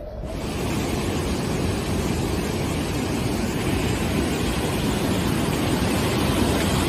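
Swollen, muddy river in flood rushing over a weir and churning downstream: a loud, steady rush of water that starts abruptly.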